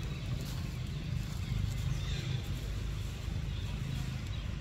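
Outdoor forest ambience: a steady low rumble with faint rustling of dry leaf litter and twigs as small monkeys move through the undergrowth.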